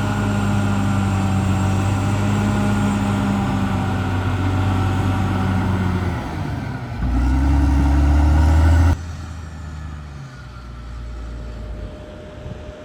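CAT D6R XL bulldozer's diesel engine running steadily, with a fainter higher whine over it. About seven seconds in the engine note dips, then comes back louder and deeper for about two seconds before the sound drops off abruptly to a much quieter, lighter engine sound.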